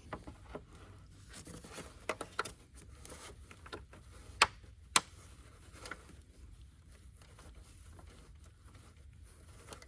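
Scattered light clicks, taps and scrapes of hand work on car parts as a screw is fitted, with two sharp clicks about four and a half and five seconds in.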